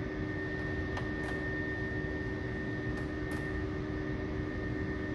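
Electric heat gun running: a steady fan whir with a constant hum, and a couple of faint clicks from the vinyl wrap film being handled.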